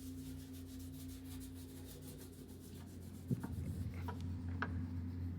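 Hand rubbing and scraping on the inside of a loader tyre while a puncture patch is being put on, over a steady low hum. A knock about three seconds in, then a few sharp clicks.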